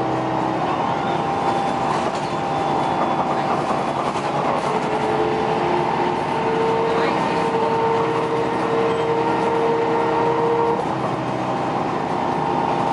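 City bus running, heard from inside the passenger cabin: a steady drone of engine and road noise, with a whine from the drivetrain that starts about five seconds in, steps up a little in pitch, and stops a couple of seconds before the end.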